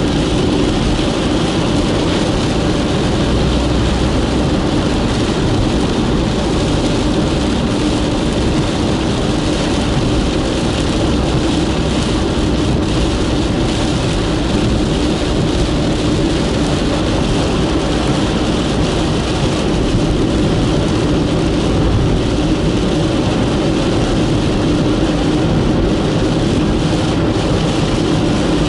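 Steady road and engine noise of a moving car, heard from inside its cabin, with a constant low hum.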